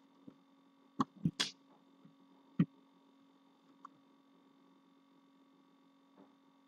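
Steady low electrical hum from the recording setup, with a few brief clicks about one, one and a half and two and a half seconds in.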